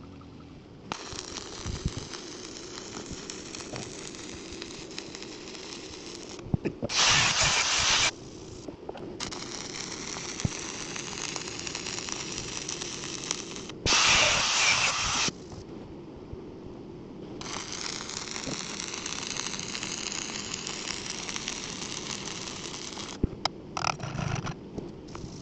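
Stick welding arc crackling and hissing in several runs of a few seconds each, with short pauses between them. Twice, a louder burst of noise about a second long cuts in.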